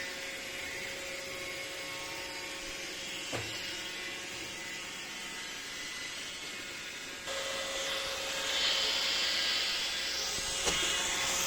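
iRobot Roomba 606 robot vacuum running: a steady whir of its motor and brushes with a steady hum, growing louder about seven seconds in and adding a higher hiss. A light knock about three seconds in and another near the end.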